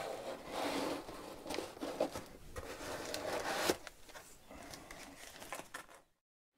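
Hands rummaging in foam packing inside a box and lifting out a lens: scraping and rustling of the foam with a few light knocks, loudest in the first few seconds and fainter after.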